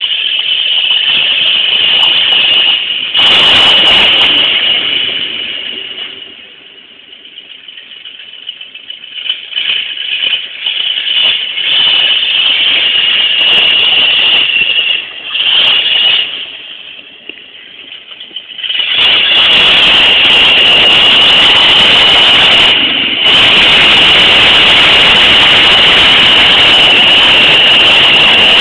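Dodge pickup truck's engine working hard as the truck drives through mud, heard harsh and distorted through a cellphone microphone. The engine sound is loud at first, eases off about six seconds in, swells and fades several times, then stays loud from about nineteen seconds in.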